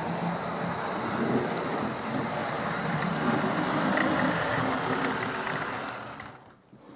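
Bachmann USA class tank model locomotive's electric motor running and its wheels rumbling on the rails as it hauls eight coaches with ease at low controller power. The sound is steady, then dies away near the end.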